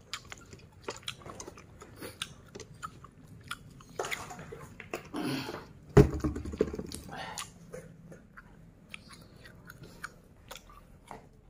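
Close-up chewing and biting of crisp fried food eaten by hand, with many small crackles. About halfway through, a single loud knock stands out above the chewing.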